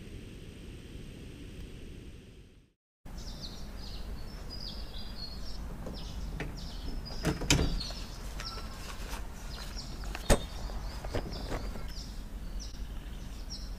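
Outdoor ambience: a steady low rush for the first few seconds, then a brief dropout, then many short, high bird chirps over a low background, with two sharp knocks, the louder one about ten seconds in.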